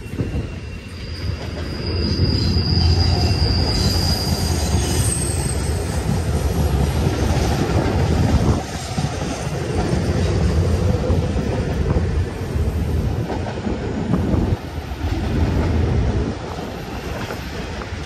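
Empty intermodal well cars of a BNSF freight train rolling past, a steady rumble of steel wheels on rail. A high wheel squeal rings out for a few seconds near the start.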